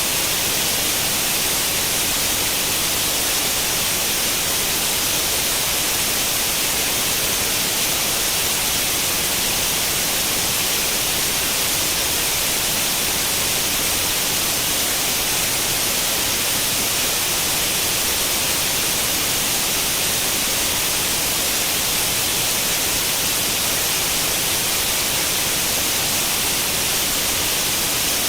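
Steady white noise like the static of an old tube television tuned to no channel: an even, unchanging hiss, brightest in the high range.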